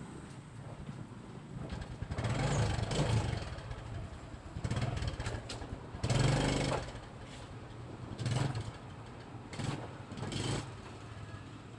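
Motorcycle engine running, its level rising and falling in several short swells as the revs go up and back down.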